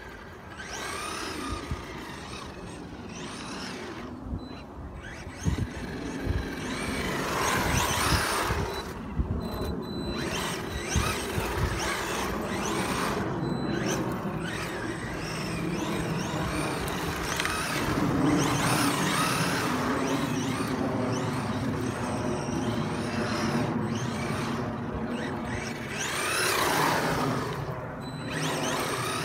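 Maverick Strada RX radio-controlled car driving on tarmac: its electric motor and gears whine, rising and falling in pitch as it speeds up and slows, over tyre noise, with a few sharp knocks.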